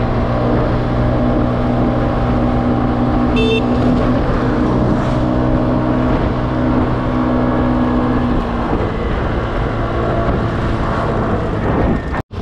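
An engine running steadily, with a low hum that fades out about eight seconds in.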